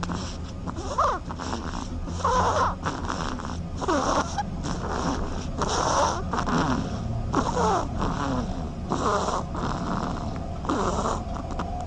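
Sleeping duckling snoring: a soft rasp with small squeaky pitch glides on each breath, repeating about every one and a half seconds.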